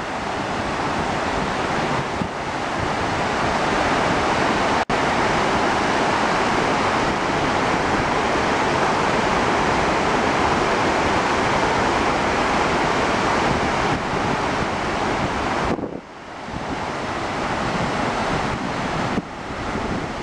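Steady rush of a wide, multi-tiered cascading waterfall pouring over rock ledges into a pool. The sound drops out for an instant about five seconds in and dips briefly twice near the end.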